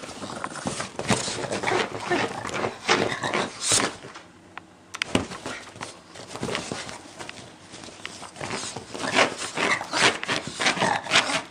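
Two Boston terriers play-fighting on a cloth-covered sofa: irregular scuffling and rustling of fabric mixed with the dogs' breathy play noises, with a brief lull about four seconds in.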